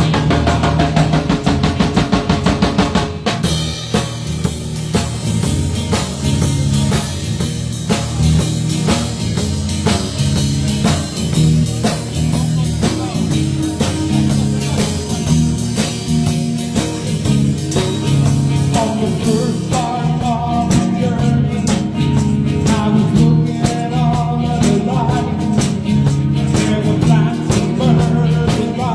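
Live band playing rock music, the drum kit and bass driving a steady beat, with a busier, denser stretch in the first three seconds.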